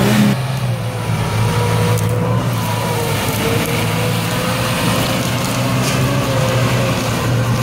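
Land Rover Defender pickup's engine running at steady revs as it drives off-road, with a thin whine over it. A revving sound cuts off abruptly just after the start.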